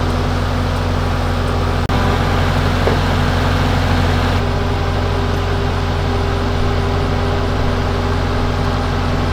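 Skid steer engine running steadily, with a brief dropout about two seconds in.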